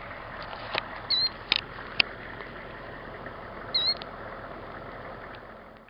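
Killdeer giving two short, shrill alarm calls, about a second in and again near four seconds, over a steady hiss of wind, with a few sharp clicks; the bird is alarmed at people close to its eggs laid in the gravel. The sound fades out at the end.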